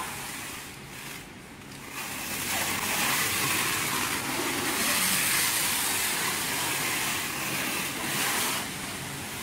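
Plastic stretch film being pulled off its roll and wound around a packaged CNC router: a rasping hiss that starts about two seconds in, swells and falls, and stops near the end, over a steady low hum.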